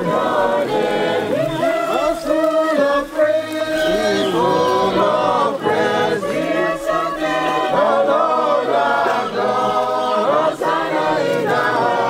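Congregation of many voices singing a hymn together, sustained sung notes moving from one to the next without a break.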